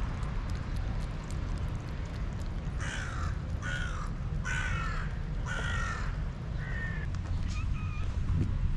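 A crow cawing about five times in a row, harsh calls about half a second apart, with a couple of short higher chirps near the end, over a steady low rumble.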